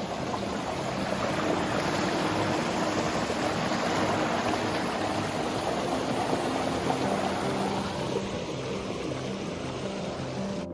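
A creek rushing steadily, with faint background music underneath.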